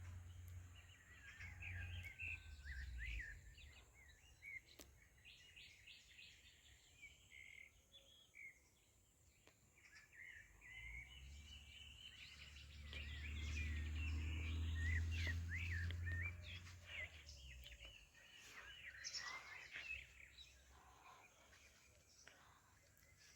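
Several small birds chirping and twittering in quick, sliding notes. A low rumble swells near the start and again midway, at its loudest around the middle of the stretch.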